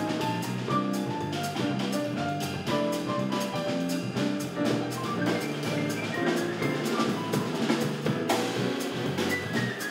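Live jazz piano trio playing: a grand piano runs a busy melodic line over electric bass, with a drum kit keeping a steady beat of cymbal and snare strokes.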